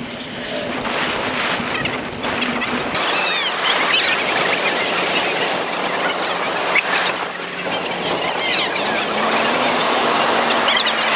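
Wind and rolling noise from a handlebar-mounted action camera on a moving bicycle, sped up four times. About three seconds in it gives way to a steady rush of heavy surf breaking on the beach, with short high-pitched chirps over it.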